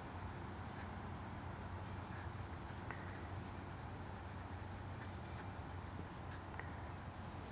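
Quiet background ambience: a steady low hum with faint, scattered high-pitched insect chirps.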